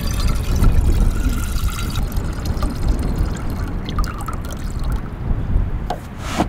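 Water running from a brass spigot through a short hose into a saucepan, filling it. Near the end the flow stops and there is one sharp knock.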